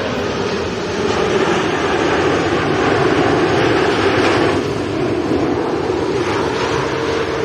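Jet airliner passing low overhead, its engines making a loud, steady rushing noise with a faint whine underneath.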